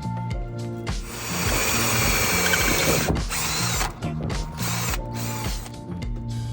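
Power drill running under load for about three seconds, starting about a second in, with a brief break near the middle. Background music with a steady beat plays before and after it.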